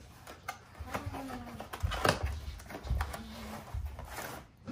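Cardboard box being torn apart by hand: a run of ripping, creasing and rustling with sharp cracks, loudest about two seconds in, and two brief low squeaks.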